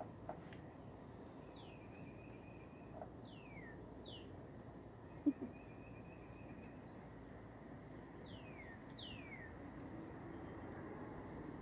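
Wild birds singing: several downward-sliding whistled notes and a couple of buzzy trills over a faint outdoor hiss, with one thump about five seconds in.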